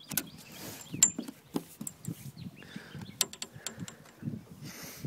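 Freshly landed redfin flapping on a carpeted boat floor: irregular thumps and slaps, with a few sharp knocks.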